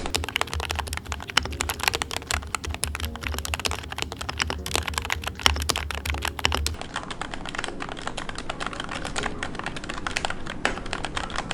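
Continuous fast typing on a Keychron K2 mechanical keyboard fitted with lubed Gateron Pro Milky Yellow linear switches, a tape mod and tuned Everglide stabilizers, giving a dense stream of keystrokes. A low hum sits under the first half and stops a little past the middle.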